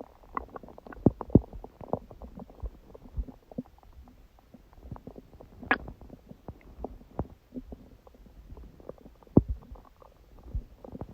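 Human stomach growling: a run of short gurgles and pops, the loudest about a second in and near the end, with a longer squeaky gurgle about halfway through. It is digestion some hours after a big udon meal, which the owner puts down to her stomach meeting gluten after a long break.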